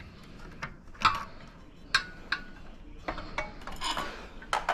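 Metal tools and parts clinking and tapping under hand work: a few sharp separate clicks, with a short scraping rub about three seconds in.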